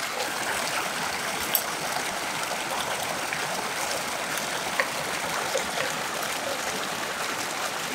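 Water running steadily as the fish pond fills.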